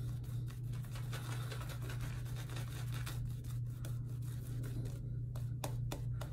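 Semogue 2000 boar-bristle shaving brush working lather on the face: quick scratchy swishing strokes, a few a second and more distinct near the end, over a steady low hum.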